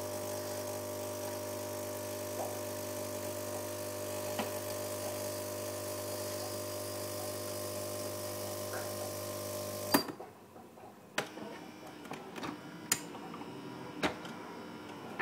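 Gaggia Accademia super-automatic espresso machine humming steadily as it pumps espresso into the glass of milk. The hum cuts off suddenly with a click about ten seconds in, and a few sharp clicks follow.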